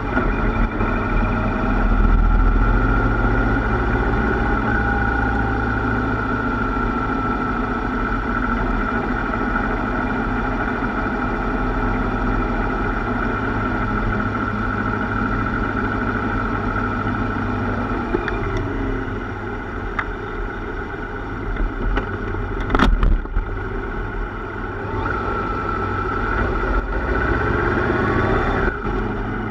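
Yamaha Royal Star motorcycle's V4 engine running steadily at cruising speed, with a continuous rush of wind and road noise heard from on the bike. A brief sharp knock about two-thirds of the way through.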